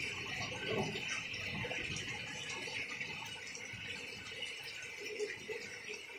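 Heavy rain falling steadily, splashing into standing water on a flooded street, a constant hiss dotted with small drop ticks.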